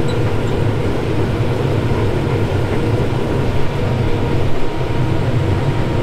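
Case IH combine harvester running at work, a steady low engine and machinery drone with a faint constant whine above it.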